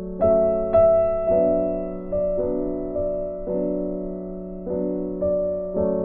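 Slow, gentle piano music: single notes and chords struck every half second to a second, each ringing and fading.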